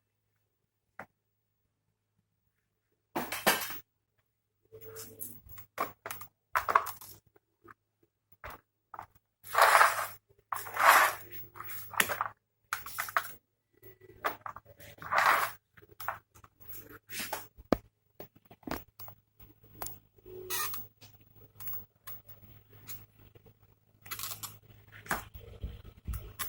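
Irregular clicks, scrapes and rustles of hands handling a DVD player's casing and tools, over a faint low hum.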